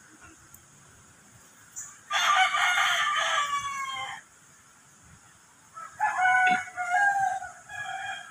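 A rooster crowing twice: a crow of about two seconds starting about two seconds in, and a second, more broken crow near the end.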